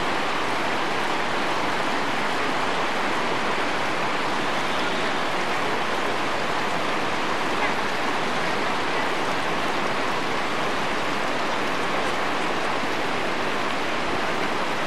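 Steady rushing of the upper Ganga (Bhagirathi), a fast glacial mountain river, an even unbroken wash of water noise.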